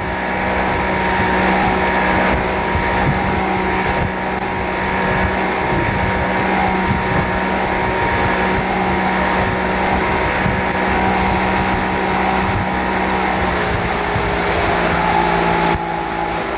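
Motorboat engine running steadily at speed while towing a tube, a constant drone with a noisy rush over it.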